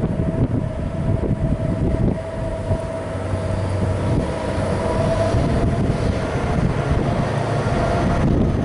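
Two diesel-electric locomotives, QBX001 leading and EMD C502 behind it, working under power as they pull an empty wheat train out and approach. A dense engine rumble carries a steady whine over it.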